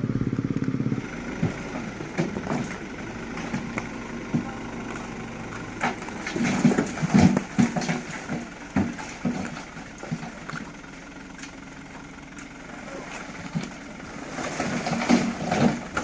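A vehicle engine runs loud and close for about the first second, then drops away to a low idle, with scattered knocks and irregular bursts of voices over it.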